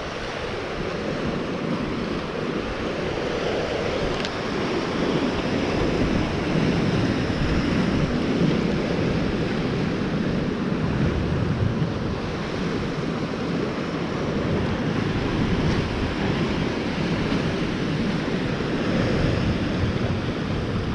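Steady sea noise of waves and surf, with wind buffeting the microphone.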